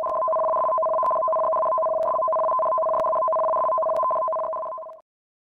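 Electronic tsunami-warning alert tone: two steady pitches held together as one chord, with faint ticks about once a second. It cuts off sharply near the end.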